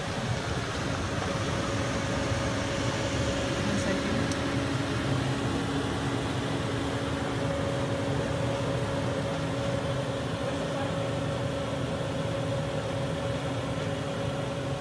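Kitchen range hood exhaust fan running steadily: an even whir with a constant hum.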